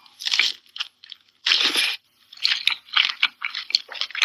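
Biting into and chewing a piece of pineapple close to the microphone: a short bite near the start, a long loud crunch about a second and a half in, then a run of quick chewing sounds.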